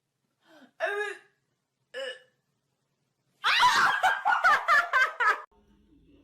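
A person laughing: two short laughs, then a louder burst of laughter lasting about two seconds.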